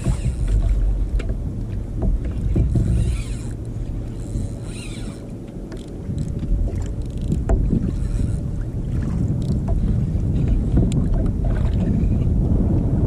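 Wind on the microphone and water lapping against the hull of a plastic sit-on-top kayak on choppy sea, with a few short splashy hisses.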